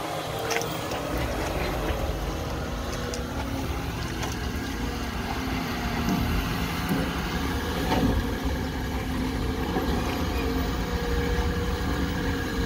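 Diesel engine of heavy equipment running steadily, heard from inside a machine's cab, with a few light clicks and knocks of machinery.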